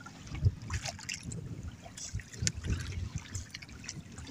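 Choppy sea water lapping and sloshing against a small outrigger boat's hull, in irregular soft splashes.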